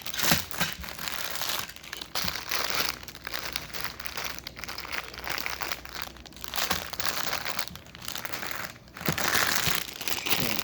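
Thin plastic packaging crinkling and rustling as it is handled, in irregular bursts that grow louder near the end.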